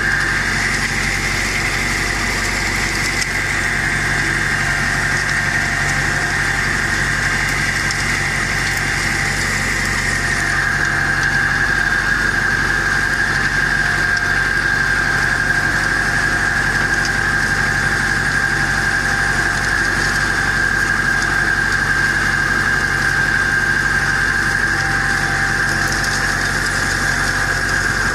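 IMT 560 tractor's diesel engine running steadily under load while pulling a disc harrow through soil. A steady high whine sits over the engine and drops slightly in pitch about ten seconds in.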